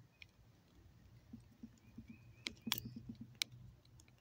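Small screwdriver working a tiny screw in a plastic battery tester: faint light ticking as the tip turns and scrapes, with a few sharp clicks between two and a half and three and a half seconds in.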